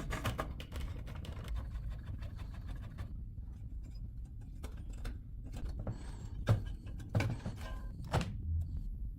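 A series of scattered clicks and light knocks, the loudest about six and a half, seven and eight seconds in, over a low steady hum.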